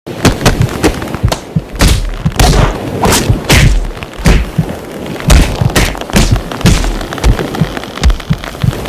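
Dense, loud mix of heavy booms and thumps with sharp cracks and smacks, several a second. It starts suddenly out of silence.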